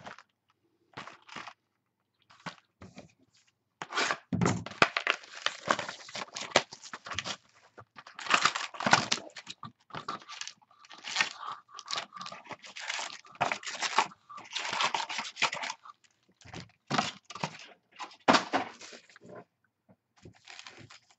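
Cardboard hobby box of Topps Prime football cards being torn open and its card packs pulled out: a run of tearing, crinkling and rustling from about four seconds in, easing off after about sixteen seconds into a few light taps as the packs are set down.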